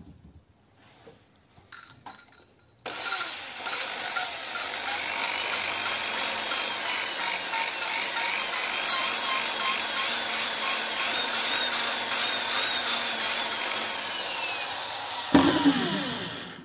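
Electric drill spinning a valve in a pit-bike cylinder head to lap it with grinding paste. It starts about three seconds in and runs with a high whine over a steady noise, the pitch wavering up and down about twice a second as the speed is raised and lowered while the valve is let bounce on its seat. It winds down near the end.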